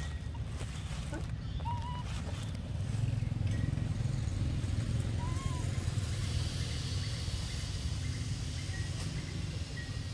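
Steady low engine rumble of a motor vehicle running nearby, a little louder from about three seconds in. A few faint clicks early on, and two short high chirps.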